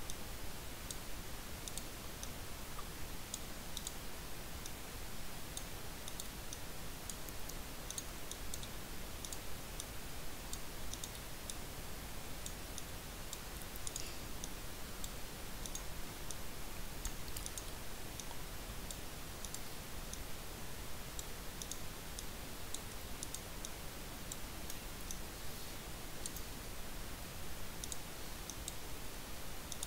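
Faint, irregular clicks of a computer mouse over a steady background hiss, each click a dab of the retouching brush on the image.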